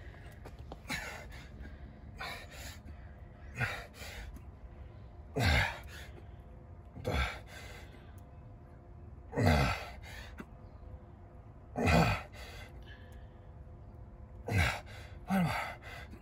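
A man's forceful, voiced exhales, a falling grunt-like breath with each push-up, about every two to three seconds, louder from about five seconds in as he strains late in the set.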